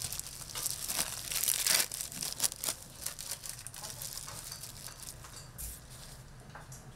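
Crinkling and rustling of food wrapping being handled, a run of quick crackles, loudest and densest in the first three seconds, over a steady low hum.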